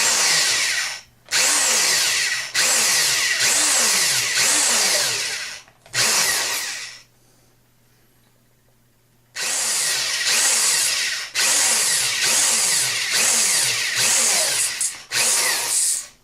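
Power drill with a 1/8 inch bit boring the corner holes into the wood of a hollow-body electric guitar. It runs in a series of short trigger bursts, each a second or two long, the motor speeding up and slowing with each one, with a pause of about two seconds midway.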